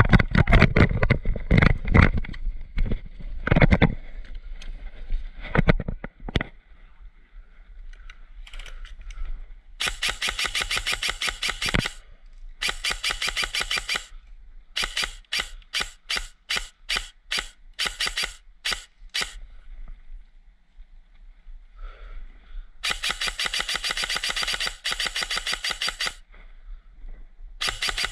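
Airsoft electric rifle firing close by: rapid full-auto bursts of about two seconds each, a string of single shots a few per second in the middle, then more bursts near the end. Before the shooting, heavy thumps and rustling as the player runs and takes cover.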